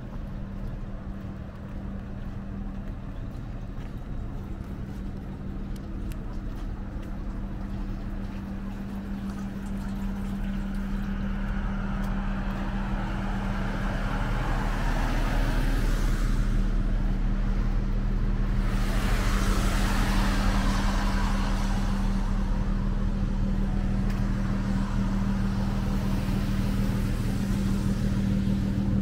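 Traffic passing on a rain-wet road, tyres hissing on the wet asphalt, with two vehicles swelling past in the middle. A steady low hum runs underneath.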